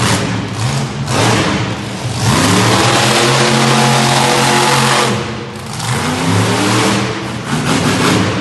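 Monster truck engines revving hard. The pitch climbs about two seconds in and holds high, drops briefly around five seconds in, then climbs again.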